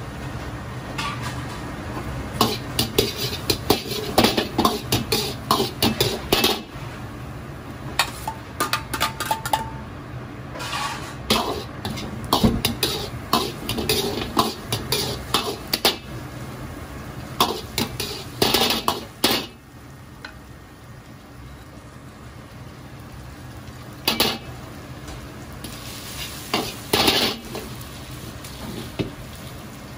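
A metal ladle scraping and clanking against a carbon-steel wok in stretches of quick strokes as garlic and diced char siu are stir-fried. Under it runs the steady low rush of the gas burner.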